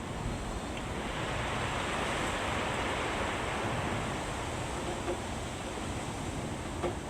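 A steady rushing noise from a soundscape recording, swelling about a second in and easing after about five seconds, with a small click near the end.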